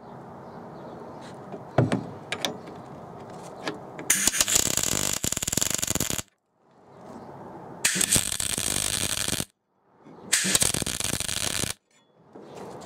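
Electric arc welder tack-welding a steel bracket to a car seat base: three runs of welding noise, each about one and a half to two seconds long, starting about four, eight and ten seconds in. Before them there is a fainter stretch with a few sharp clicks.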